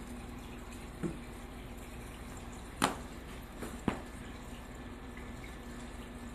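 Aquarium water running and trickling steadily with a faint low hum, broken by three short clicks about one, three and four seconds in.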